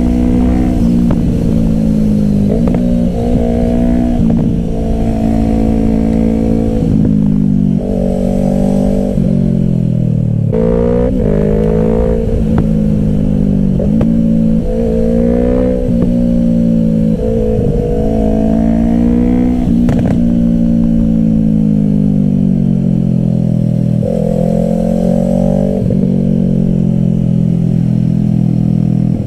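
Yamaha R3's 321 cc parallel-twin engine through an M4 Street Slayer exhaust with the baffle removed, ridden hard. The revs climb, break off at each gear change or roll-off, and climb again, over and over.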